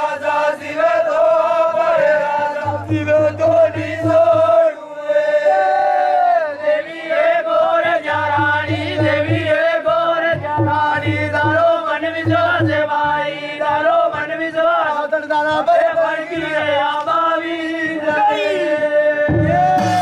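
A group of men chanting a Gavri ritual song together, held around one steady pitch. Low drumbeats join in several stretches.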